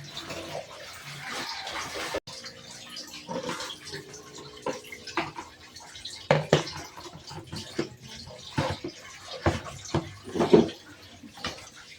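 Water running, with a string of knocks and clatters of things being handled, coming thicker and louder in the second half.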